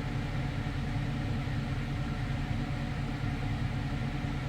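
A steady, low mechanical hum that holds unchanged throughout.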